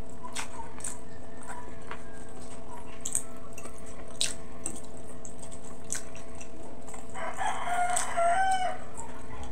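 Close-up eating sounds: scattered wet lip smacks and chewing clicks from a mouthful of braised pork hock and rice. About seven seconds in, a rooster crows in the background for about a second and a half. A steady low hum runs underneath.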